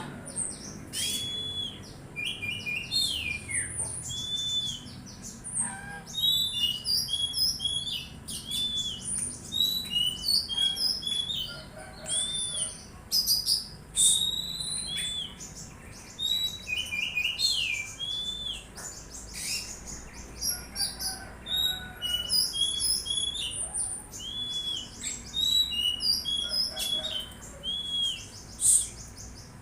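Songbird singing a continuous, varied run of short chirps, arched whistled notes and trills.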